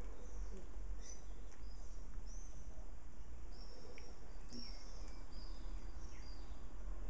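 Young puppies play-fighting, giving a string of short, very high-pitched squeaks and whines, some sliding in pitch, over a steady low hum.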